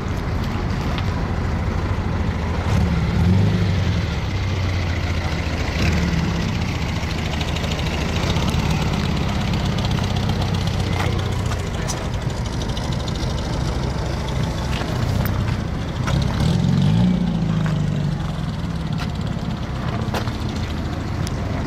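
A vehicle engine running at low speed, its pitch rising and falling twice, about three seconds in and again near seventeen seconds in.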